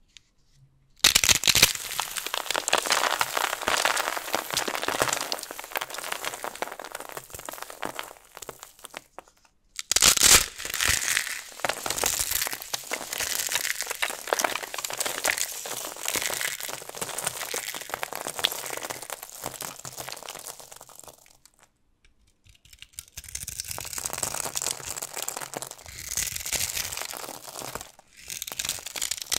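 Dried soap boxes packed with starch and glitter foam being crushed, giving dense crunching and crackling. It comes in three long spells broken by short pauses, with a fourth starting near the end.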